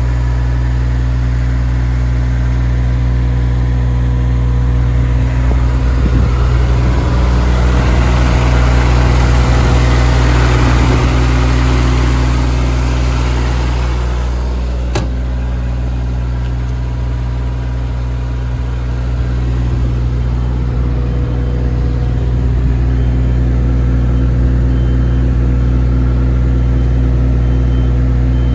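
Diesel engine of a JCB 8014 mini excavator running steadily. It gets louder and noisier for several seconds around the middle, and there is a single sharp click about halfway through.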